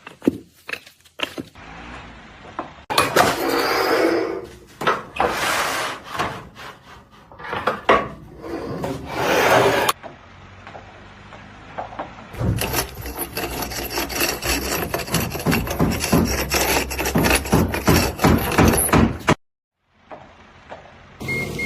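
A run of short work-clip sounds: repeated scraping and rubbing strokes on wood, with clicks and knocks. One stretch near the middle is a fast, dense scraping that cuts off abruptly.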